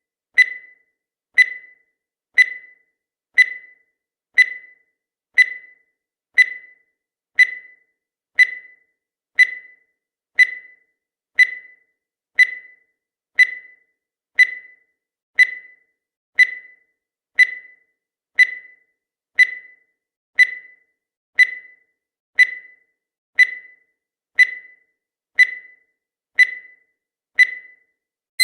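Countdown timer sound effect ticking: one short, sharp tick every second, steady and evenly spaced, each dying away quickly.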